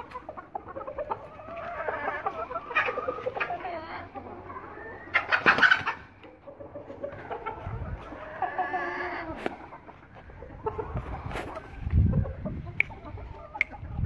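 Aseel chickens clucking and calling in short, wavering notes, with a louder, harsher call about five seconds in. Low rumbles come near the end.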